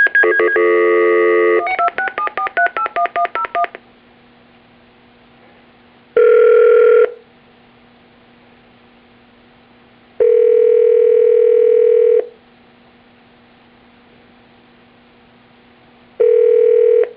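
Telephone line sounds of a call being placed: a dial tone, then a quick run of touch-tone (DTMF) key beeps as a number is dialed, then the ringing tone sounding three times as the call rings through.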